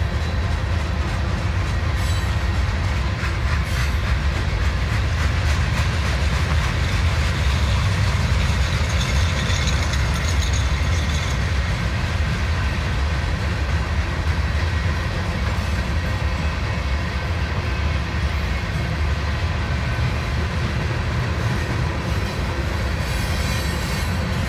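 Freight train of boxcars and tank cars rolling past: a steady low rumble of steel wheels on the rails with a rattling clatter, and a thin high squeal for a couple of seconds near the middle.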